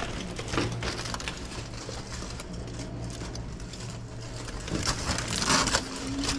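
Aluminium foil crinkling and rustling as a foil-wrapped sandwich is handled, a run of small crackles that grows louder about five and a half seconds in, over a steady low hum.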